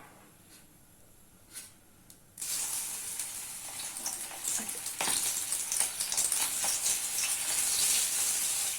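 Marinated prawns dropped into hot oil in a kadai, deep-frying: a sizzle starts suddenly about two seconds in and keeps going, with many small pops and crackles.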